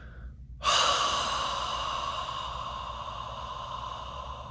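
A man's long breathy exhale close to the microphone, a sigh of about four seconds that starts sharply just after half a second in and slowly fades away.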